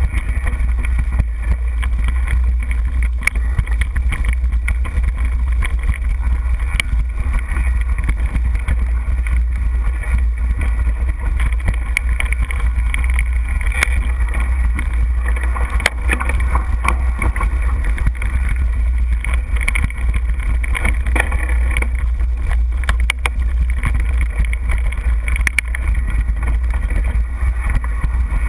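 Mountain bike, a Trek Superfly 29er, rattling and clicking over rocky dirt trail, heard through a GoPro with a heavy, steady wind rumble on its microphone.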